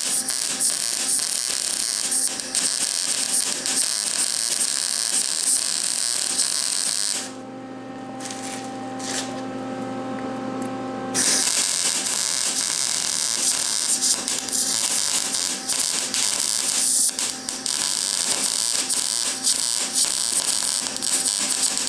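Electric arc welding on steel: a steady, loud frying crackle of the arc as a weld bead is run. About seven seconds in the arc stops for roughly four seconds, leaving only a steady electrical hum, then the crackle resumes and runs on.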